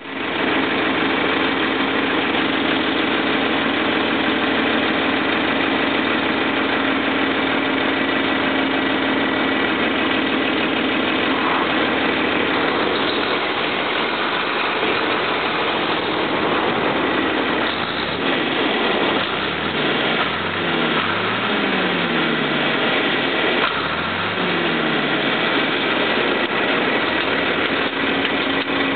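John Deere 4020's 404 cubic-inch diesel engine running steadily under way, heard from the driver's seat. In the second half its note sweeps up and down twice.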